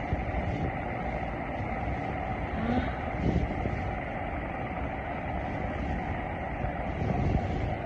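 Orient stand fan running, its airflow rushing steadily over the microphone as a low, even noise.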